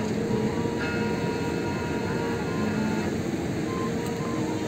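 Steady rushing noise of surf and wind, with soft background music of held notes that change pitch every second or so.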